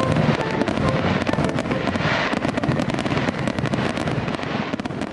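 A fireworks display: dense, rapid crackling and popping of many shells bursting together, easing slightly near the end.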